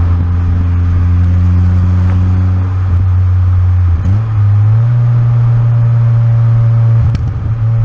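Turbocharged Fiat Cinquecento's exhaust running while the car drives, a steady low drone. About four seconds in the note breaks briefly and comes back at a higher pitch, with another short break near the end.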